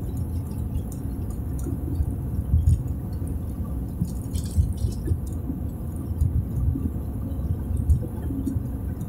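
Car cabin noise while driving on a paved road: a steady low rumble of tyres and engine, with a few light clicks about halfway through.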